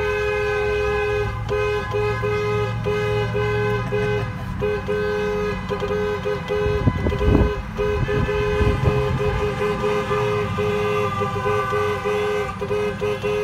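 Car horn honking in long blasts with brief gaps between them, two steady notes sounding together, over the low hum of the car in motion. A louder low rumble swells briefly about halfway through.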